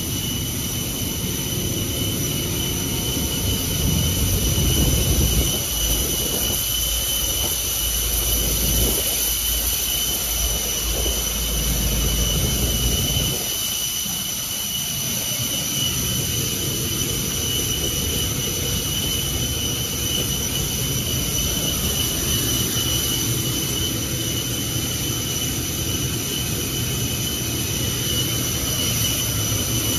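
Steady whine and rush of a running aircraft jet turbine, two high steady tones over a broad roar. A deeper low rumble under it in the first half fades away about halfway through.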